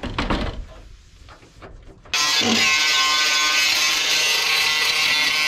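A few knocks and clatter on a truck cab's steel door, then about two seconds in a sudden switch to loud, steady background music.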